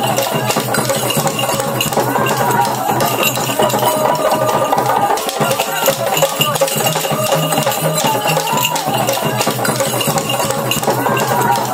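Bwiti ceremonial music: rattles shaken in a steady, dense rhythm, with a melody that comes round again every few seconds over a low droning tone.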